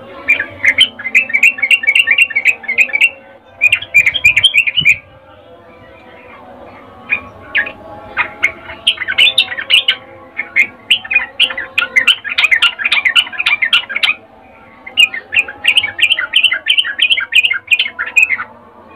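Yellow-vented bulbul chattering in long runs of rapid, clipped notes, broken by short pauses about 3, 5 and 14 seconds in. It is offered as a female's 'birahi' call, given when she is ready to breed, to draw in males.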